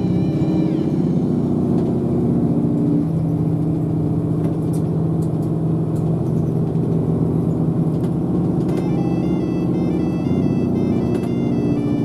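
Route bus engine running as the bus drives, heard from inside the cabin: a steady low hum that shifts in pitch a few times with the bus's speed. About three-quarters of the way through, a simple electronic tune of high stepped notes begins over it.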